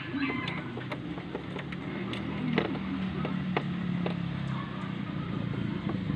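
A motor vehicle engine running as a steady low hum that swells a little in the middle, with a few sharp clicks scattered through it.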